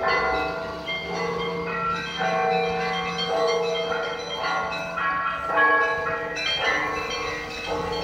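Russian Orthodox church bells of the Yelokhovo Cathedral ringing a peal: several bells of different pitches struck in quick succession, their tones ringing on over one another above a steady deep hum.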